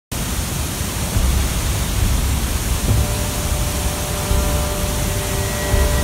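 Large waterfall rushing: a steady, loud hiss of falling water with a deeper rumble underneath that swells and eases.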